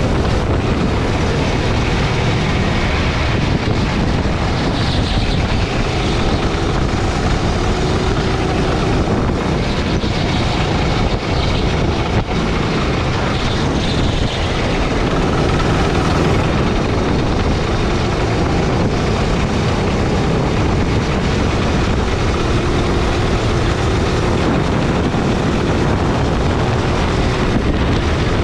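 Sodi gasoline kart's engine running steadily as the kart is driven around the track, heard from on board. Its pitch drifts slightly up and down.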